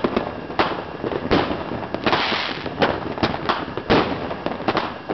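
Aerial fireworks going off in a fast, irregular string of bangs, about a dozen in five seconds, with a longer stretch of hissing crackle about two seconds in.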